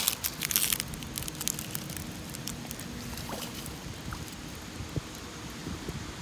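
Water splashing as a carp is released into a shallow pond edge: a quick cluster of short splashes in the first second and a half, then only a few small drips and ticks.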